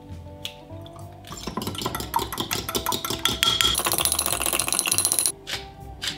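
Eggs beaten with a metal spoon in a glass measuring cup: rapid clinking of metal against glass. It starts about a second in, grows louder, and stops about five seconds in, over soft background music.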